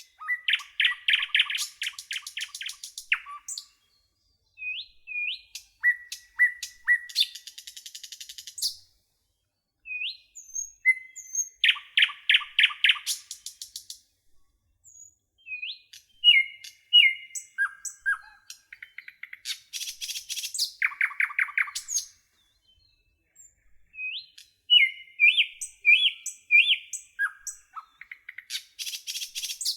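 Songbirds singing in phrases of rapid chirps and fast trills, each a few seconds long, with short pauses between them.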